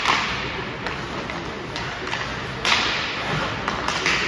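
Ice hockey play echoing in an indoor rink: sharp cracks of sticks and puck, one right at the start and a louder one about two and a half seconds in, each followed by a hiss of skate blades scraping the ice, with lighter clicks and taps between.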